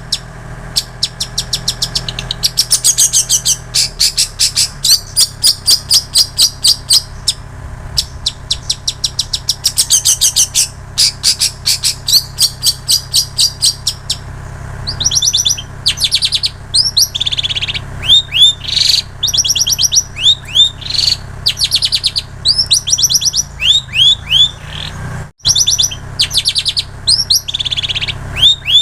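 Long-tailed shrike (cendet) singing a song filled with mimicked prinia and canary phrases: fast trills of high repeated notes, then quick rising and falling chirps in the second half.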